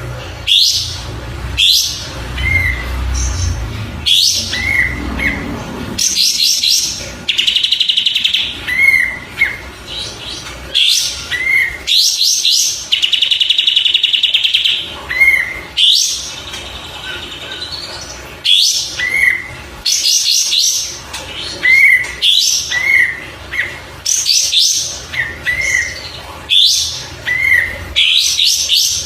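Kapas tembak bulbul singing: bursts of quick high chirps and short trills, with small notes dipping and rising between them. Twice, about seven seconds in and again near the middle, it gives a longer buzzing rattle. A low rumble sits under the first few seconds.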